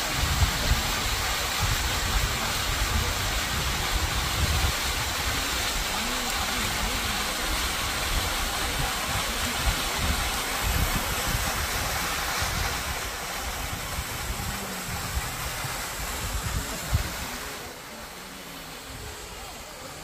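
Waterfall rushing with a steady roar of falling water. It gets quieter about two-thirds of the way through and drops again near the end.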